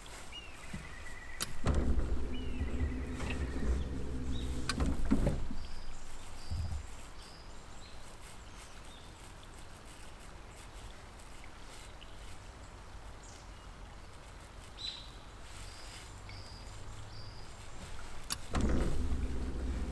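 A boat's electric motor humming low in two spells, from about two seconds in to about six, and again near the end. Small birds chirp repeatedly over it.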